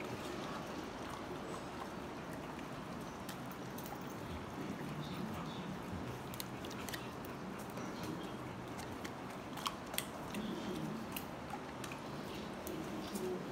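Pit bulls chewing and crunching hand-fed treats, with scattered sharp clicks over a steady low hiss.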